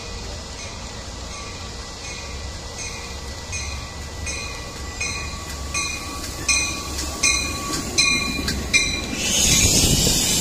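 Grade-crossing bell ringing about every three-quarters of a second as a Metra commuter train approaches, growing louder. Near the end the train's rush of noise swells over it as it arrives.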